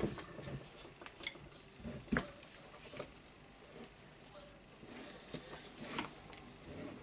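Faint scraping and a few separate small clicks as a screwdriver pries the cap off the front of a demolition hammer's tool holder.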